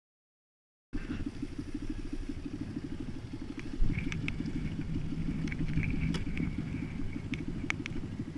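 Small single-cylinder pit bike engine idling with a fast, even putter, starting after about a second of silence; a thump about four seconds in.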